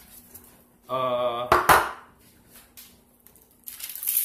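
A short hummed 'uhh' from a person, then a couple of sharp knocks from handling on the baking tray, and near the end aluminium foil crinkling as a raw chicken leg quarter is lifted off the foil-lined tray.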